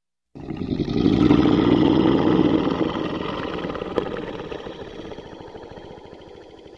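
A lion's long, low, rumbling vocalization that starts suddenly, is loudest in the first couple of seconds, then slowly dies away.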